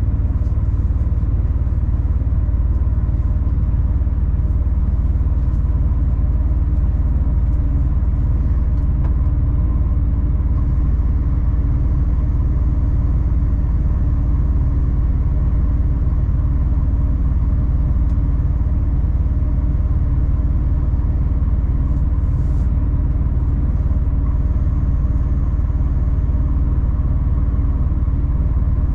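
Steady engine and road rumble of a 26-tonne three-axle rigid lorry under way, an even low drone with no sudden changes.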